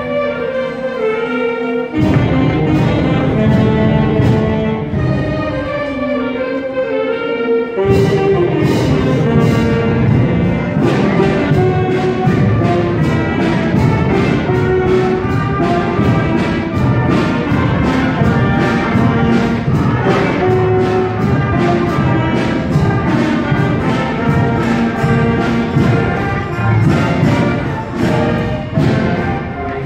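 Seventh-grade concert band playing a piece, with saxophones and brass. Softer held chords open it, then the full band comes in louder about eight seconds in over a steady beat.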